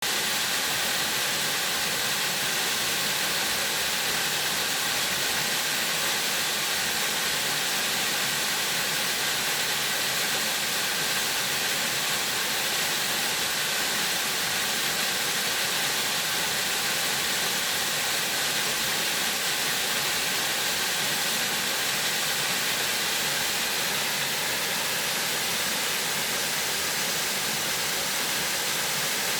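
Mountain stream water rushing steadily over rocks, an even, unbroken hiss.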